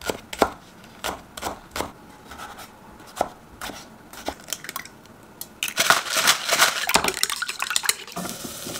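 Chef's knife chopping green onion and tomato on a wooden cutting board, in scattered single strikes. About six seconds in it gives way to a quicker, denser run of strokes: a utensil beating egg in a ceramic bowl.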